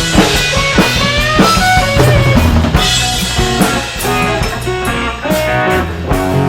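Rock band playing an instrumental passage: lead guitar bending notes over a drum kit and bass.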